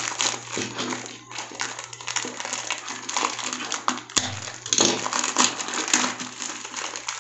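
Clear plastic shrink wrap crinkling and tearing as it is pulled and peeled off a rolled-up mousepad, in irregular crackles, with one sharp click about four seconds in.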